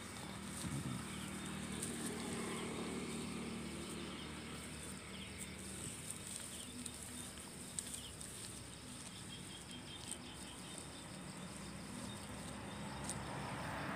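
A puppy and an adult dog play-wrestling on grass and gravel: rustling and scuffling with small scattered clicks, over a steady high trill of night insects. A low hum grows louder near the end.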